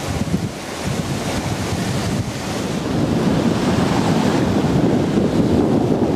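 Small Baltic Sea waves breaking and washing up on a sandy shore, with wind buffeting the microphone. The rumble grows louder about three seconds in.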